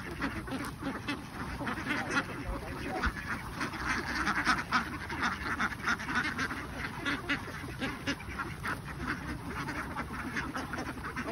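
A large flock of domestic ducks quacking all at once, many short calls overlapping in a continuous din.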